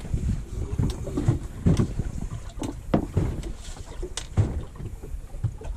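Small open boat rocking on choppy water: waves slapping the hull in irregular low thuds, with wind on the microphone and a few sharp knocks.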